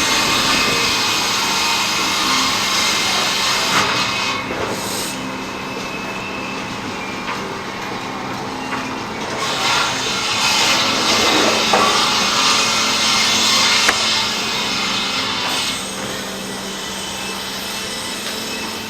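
Sawmill saw cutting a log into lumber, with a steady hum underneath. The cutting is louder at the start and again from about ten to fifteen seconds in.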